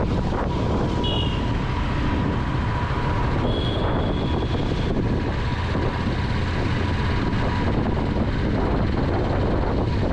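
Royal Enfield Classic 350's single-cylinder engine running steadily on the move, with wind noise on the microphone.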